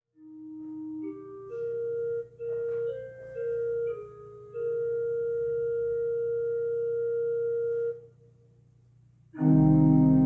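Church organ music: a quiet melody of a few notes on a soft, bell-like stop, some held steady for several seconds, dies away; about nine seconds in a much louder full organ chord enters.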